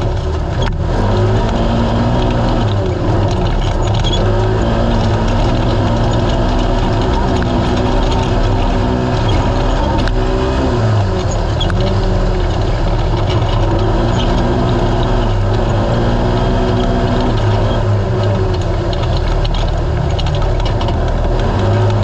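Naturally aspirated Polaris RZR side-by-side engine running hard at race pace, its pitch stepping up and down every few seconds as the throttle comes on and off, over a steady rush of noise with a few sharp knocks.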